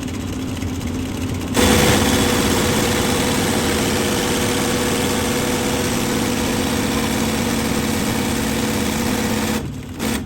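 A steady mechanical hum, joined about a second and a half in by a louder, steady machine sound that cuts off abruptly near the end.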